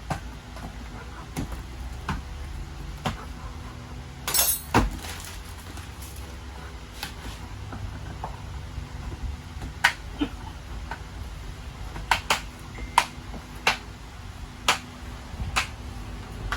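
Irregular sharp clicks and knocks of hard plastic toy parts being handled and fitted together, with a brief rustle about four seconds in.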